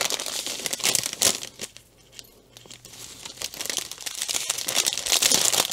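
Clear plastic sleeve crinkling and crackling as a diamond painting canvas is handled and pulled out of it, with a short lull about two seconds in.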